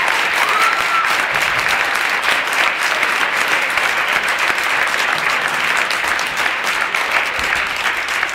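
Audience applauding: many people clapping together at a steady, loud level.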